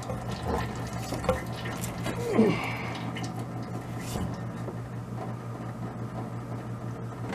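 Antifreeze draining and dripping out of the radiator's lower hose outlet, with a steady low hum underneath and a few small knocks.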